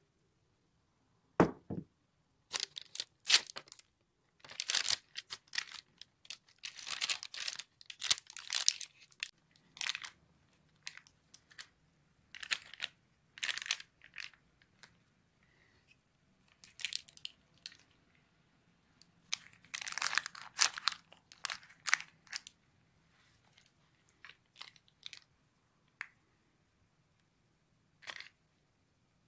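A spatula spreading and smoothing thick chocolate brownie batter over parchment paper: irregular wet scraping strokes with crinkles of the paper, separated by short pauses, and a low knock about a second and a half in.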